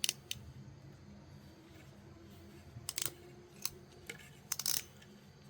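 Hand wire crimper and stripper clicking as it closes on a wire splice: a few sharp clicks at the start, a quick cluster about three seconds in, then single clicks and a longer snap near the end.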